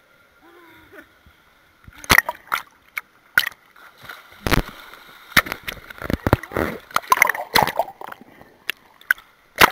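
Pool water splashing and sloshing around a camera bobbing at the surface and dipping under it: a run of sharp splashes and knocks starts about two seconds in, with gurgling between them.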